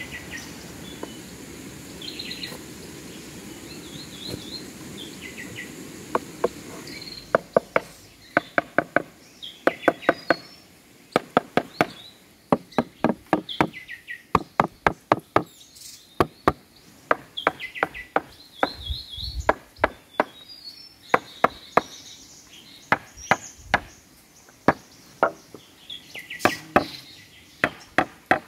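Tool blows striking timber: sharp knocks, each with a short ring, coming in quick runs of several strokes from about six seconds in. Birds chirp throughout.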